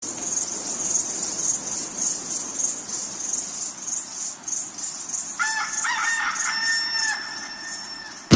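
A high hiss pulsing about twice a second, then a single long rooster crow about five seconds in that rises, holds and falls away.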